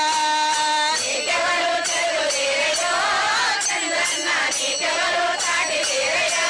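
A group of women singing a Telugu praise song together to a steady beat of clinking hand cymbals.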